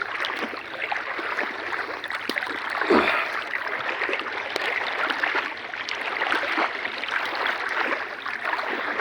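Water splashing and sloshing around a person wading through it, with many small splashes and a louder splash about three seconds in.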